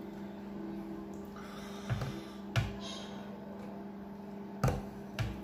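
Four sharp clicks and taps while rice is mixed and eaten by hand from a stainless steel plate, over a steady low hum.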